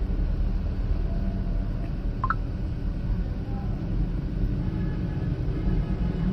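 Steady low rumbling background noise, with a brief faint rising sound about two seconds in.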